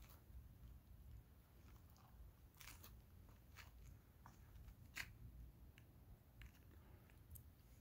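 Near silence: a faint low rumble with scattered small clicks and crunches, a sharper click about five seconds in.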